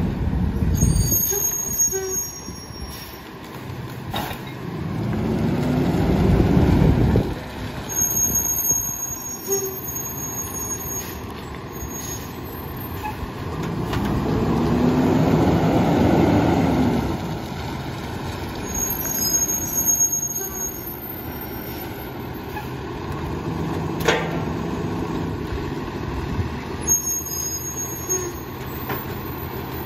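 Freightliner garbage truck's diesel engine running while the Heil PT1000 rear loader's hydraulic packer cycles to compact bags. The engine revs up and falls back three times, then drops to idle in between. A sharp knock comes about three quarters of the way through.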